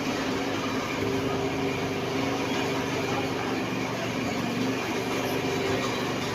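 Steady machine hum with an even grinding hiss: a hair clipper blade being sharpened on a sharpening stone.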